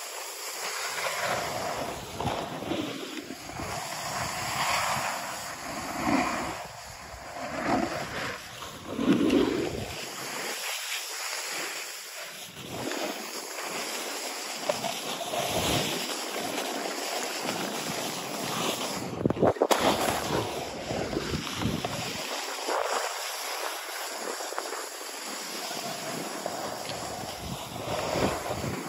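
Skiing or snowboarding downhill: edges scraping and hissing over packed snow, swelling and easing with the turns, with wind rushing on the microphone. A brief clatter comes about two-thirds of the way through.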